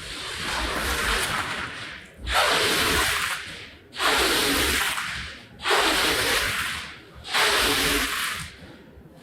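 Cleaning tool worked over a rug in five long strokes, each lasting a little over a second with short gaps between them, the first building up gradually.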